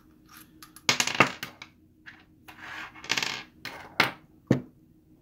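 Small metal screws from a valve bonnet dropped onto a wooden tabletop, and a hand bit driver set down: sharp metallic clicks and clatters, a cluster about a second in and two single ones near the end, with a brief rustle of handling in between.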